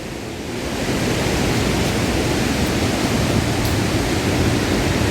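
Steady rushing roar of a large waterfall heard from close by, a little louder from about a second in.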